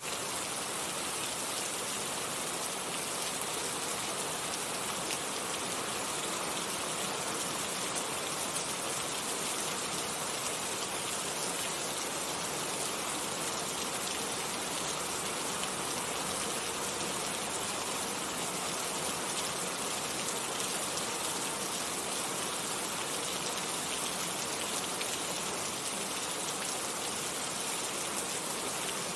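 Steady rain falling, an even dense hiss of drops with no pauses.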